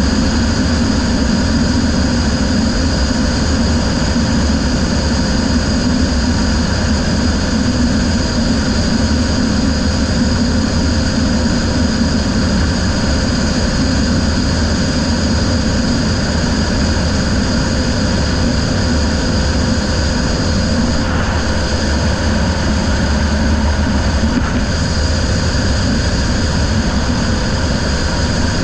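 Racing riverboat under way at speed: a steady engine drone with a constant rush of noise over it, holding even throughout.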